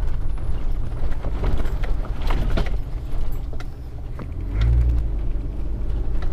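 A V10 Ford Econoline E350 van driving slowly over a rough sandy desert track: a steady low rumble from the engine and tyres, with scattered knocks and rattles from the body over the bumps. The rumble dips briefly, then swells louder a little past halfway.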